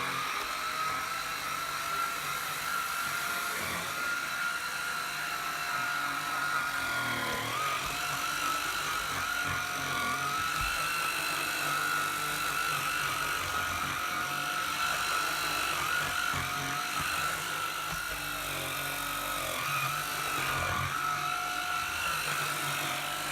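Puppyoo T10 cordless stick vacuum running on its normal setting while being pushed over a rug: a steady high motor whine that dips briefly in pitch twice, about a third of the way in and near the end.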